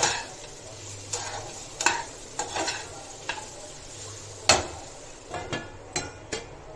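Spatula stirring and scraping diced sweet potato in a hot frying pan with a faint steady sizzle underneath, in separate strokes, the loudest about four and a half seconds in. Near the end come a few light clicks as a steel lid is set on the pan.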